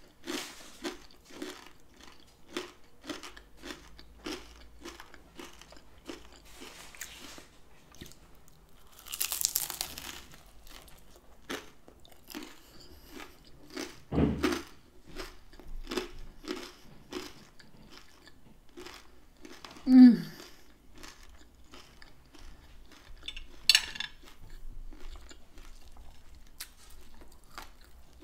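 Close-miked chewing of a fried taco empanada, its almost crunchy crust crackling in a steady rhythm of about one to two chews a second, with a louder crunch about a third of the way in. About two-thirds through there is a short, low sound falling in pitch.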